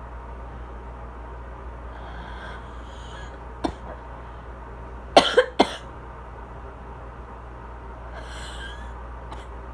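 A woman's asthmatic cough: a single short cough about three and a half seconds in, then a quick run of three louder coughs about five seconds in, with faint breathy exhales before and after.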